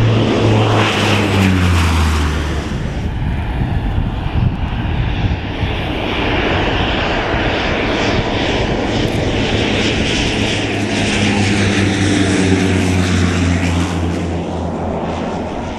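Let L-410 Turbolet twin-turboprop airliner flying low past with a loud propeller drone. Its pitch drops as it passes about two seconds in, and falls again as it passes near the end.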